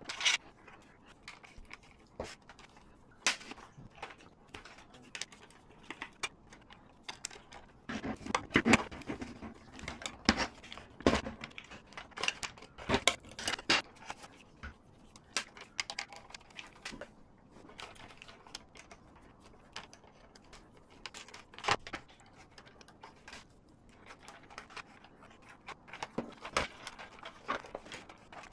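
Scattered clicks, taps and small rattles of plastic RC car parts and hand tools being handled during disassembly, in clusters around the middle and again near the end.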